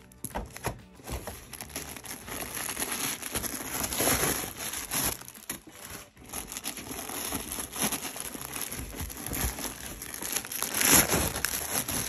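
White tissue and plastic packing wrap crinkling and rustling as it is pulled and crumpled by hand out of a handbag and its box. The handling is continuous, with louder crackles about four seconds in and again near the end.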